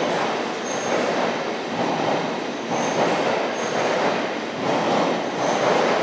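NS VIRM double-deck electric train rolling slowly over station switches: wheels running on the rails with a knock about once a second, and several short high wheel squeals.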